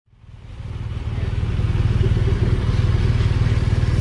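An engine running steadily at idle, a low hum with a fast even pulse, fading in over the first half second.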